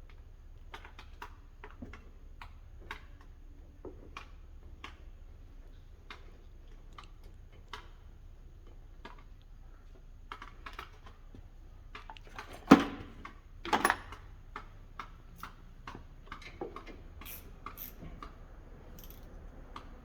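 Light, irregular metallic clicks and taps of a wrench working on a brake caliper and its brake line fitting, with two louder knocks about two-thirds of the way through.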